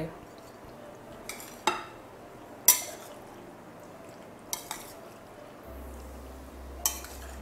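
A metal spoon stirring a macaroni and chickpea chaat dressed with yogurt in a glass bowl, with a handful of sharp, irregular clinks of spoon against glass.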